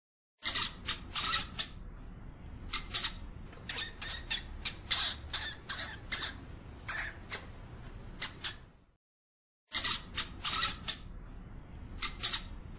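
European hamster (Cricetus cricetus) giving an irregular run of short, high-pitched squeaks, breaking off for under a second about two-thirds of the way through.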